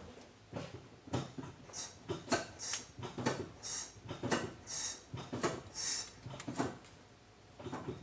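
Brake pedal on a 2014 Dodge Durango being pumped repeatedly, a rapid series of strokes about twice a second, many with a short burst of hiss. The hiss is like air, which the mechanic takes for air in the brake system that fades as the freshly fitted pads tighten up against the rotors.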